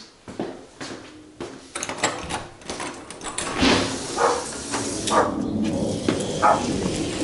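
A hinged wooden door being unlatched and swung open, with clicks and knocks. About three and a half seconds in, the sound opens up and gets louder, and a dog barks a few times, roughly once a second.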